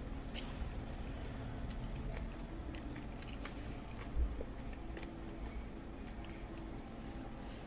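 Close-miked chewing of seblak, with scattered small wet mouth clicks and one low thump about four seconds in.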